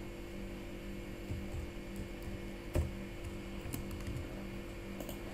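Computer keyboard being typed on, a few scattered key clicks, over a steady low electrical hum.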